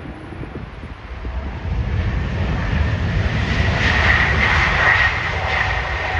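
Jet airliner on approach to land passing close by: the engine rumble builds from about a second and a half in, with a high steady whine that is loudest around four to five seconds in.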